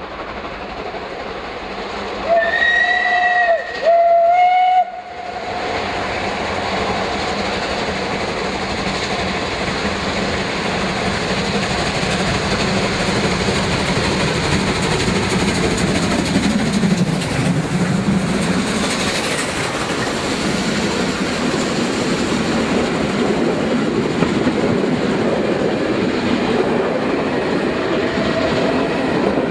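Double-headed steam train, with ČSD steam locomotives 486.007 and 498.022, sounding two steam whistle blasts about two seconds in. The locomotives then work hard as they approach and pass, growing louder, and the coaches roll by with wheels clicking over the rail joints.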